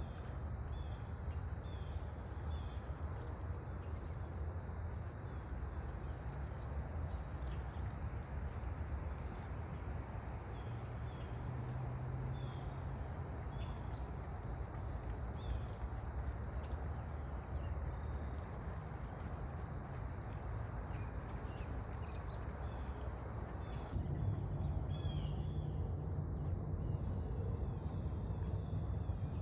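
Crickets chirping in a steady, continuous high trill over a low rumble.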